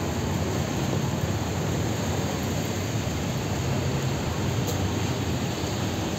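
Steady rushing noise with a low rumble underneath, unchanging throughout.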